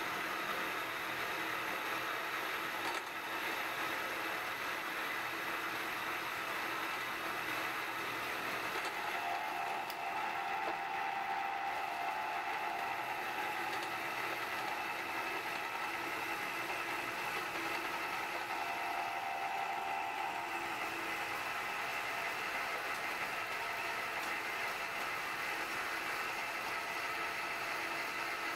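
Bridgeport milling machine running a 5/8-inch four-flute high-speed steel end mill through a full-width slot in a steel angle plate in one slow pass: a steady cutting and motor sound. A faint steady tone joins about a third of the way in and fades out about two-thirds of the way through.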